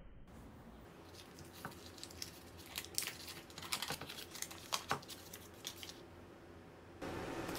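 Paper wrapper of a block of butter being unfolded and peeled off by hand, crinkling and crackling in a quick irregular run of small crackles.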